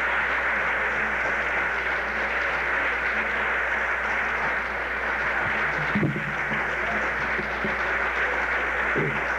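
An audience applauding steadily after a recited poem, with a few voices briefly heard through the clapping about six seconds in and again near the end.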